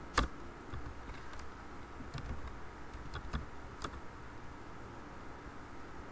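Typing on a computer keyboard: a sharp keystroke just after the start, then a handful of scattered key clicks over the next few seconds, over a steady low hum.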